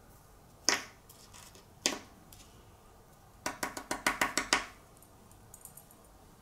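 Acrylic keychain blank tapped to knock off the excess loose glitter: two single sharp taps a little over a second apart, then a quick run of about eight taps about halfway through.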